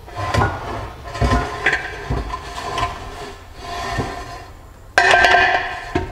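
Metal knocks, clunks and scraping as the CD009 transmission's front case is pried and slid off the gear set, the metal ringing after each knock. The loudest is a harsh clank and scrape about five seconds in.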